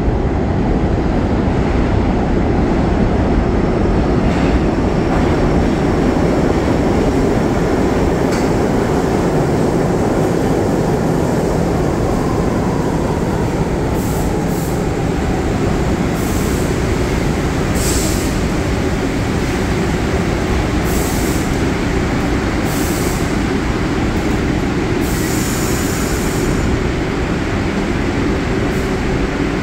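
New York City subway train running through the station, a steady rumble of wheels on rails. About halfway through there is a falling whine, followed by several brief high hisses.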